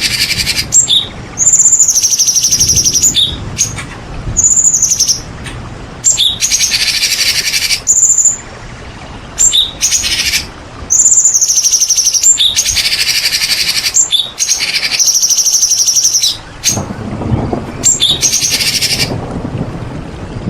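White-rumped shama (murai batu) singing hard: a run of loud, rapid, high song phrases with short pauses between them, the varied repertoire of a bird in full song. A low rumble comes in near the end.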